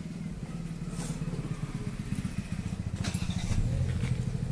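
A vehicle engine idling steadily, with a few light clicks over it.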